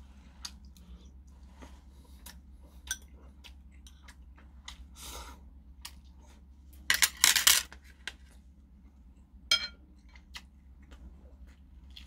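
Metal chopsticks and a spoon clicking and scraping against ceramic bowls during a meal, in scattered light taps. A louder noisy burst comes about seven seconds in and a shorter one near ten seconds, over a low steady hum.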